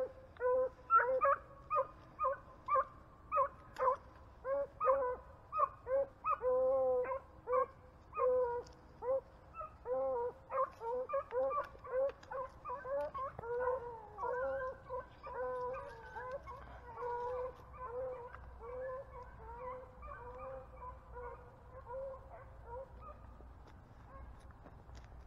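Beagles baying while running a rabbit: a string of short, pitched howls, about one or two a second, with several dogs' voices overlapping after the first few seconds and growing fainter toward the end.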